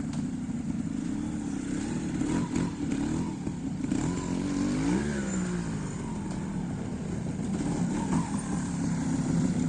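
Trials motorcycle engine running at low revs with repeated throttle blips, its pitch rising and falling; the steepest rev comes about five seconds in. A few light knocks sound along the way.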